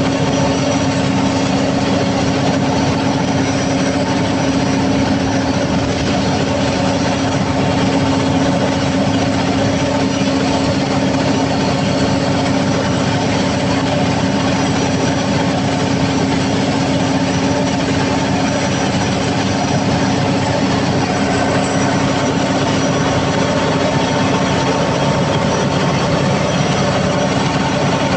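Cummins KTA50 V16 diesel generator engine running at a constant speed, a steady loud roar with a steady droning tone in it.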